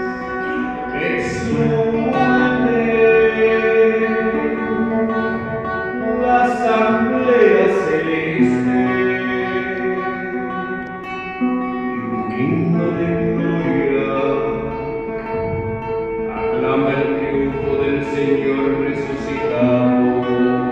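Church music with guitar and long held notes, with singing at times.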